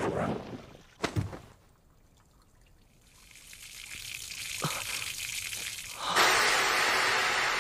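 Cartoon sound effect of water spilling out of a punctured rooftop water tank: a couple of short knocks, then a steady hiss of running water that grows and turns into a loud rushing gush about six seconds in.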